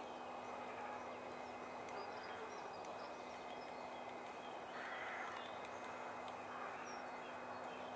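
Many small birds chirping and twittering in short scattered calls over a steady outdoor background rush with a low, constant hum.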